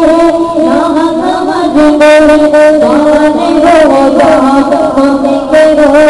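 Male voices chanting a naat, an Islamic devotional song. The voices sing an ornamented, wavering melody over a held lower note, with no instruments showing.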